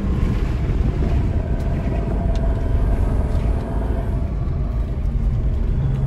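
Jeep Renegade's turbodiesel engine running with a steady low rumble as the 4x4 drives along a sand dune trail, heard from inside the cabin.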